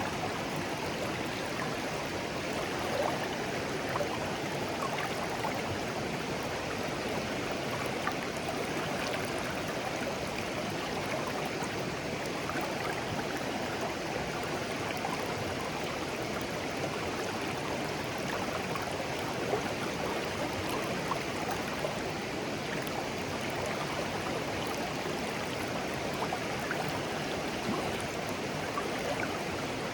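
A shallow, clear stream babbling steadily over stones, with small trickles and gurgles.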